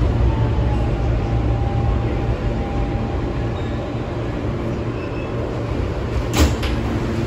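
Steady low rumble inside an R160B New York subway car as the train slows into a station, with a faint whine in the first few seconds. A single sharp clunk comes about six seconds in as the car comes to a stop.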